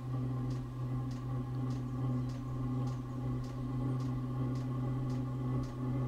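Chinese diesel heater's exhaust running at the outlet of its 6-metre extension pipe: a steady low drone with a faint kind of whistling and light ticks about twice a second. The owner reckons soot is still partly blocking the long exhaust.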